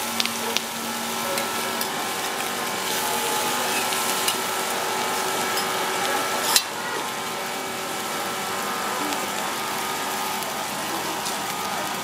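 Sambal-coated stingray on a banana leaf sizzling on a hot griddle, a steady hiss. A few light clicks of a metal spatula come just after the start, and a sharp click about six and a half seconds in.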